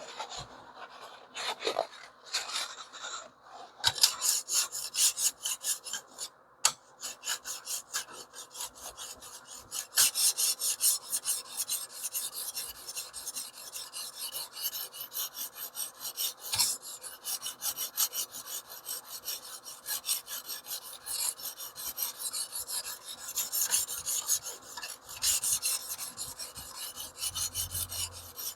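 A 220-grit coarse stone on a TS Prof Kadet Pro guided sharpening system, scraping rapidly back and forth along a small cleaver's edge, several even strokes a second. A few slower strokes come first, then a steady run begins about four seconds in, with a short pause near seven seconds.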